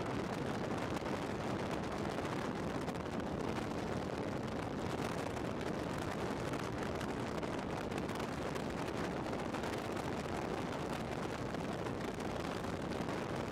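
Steady rush of wind and running noise from a bass boat at high speed, about 50 to 75 mph, with no distinct engine note standing out.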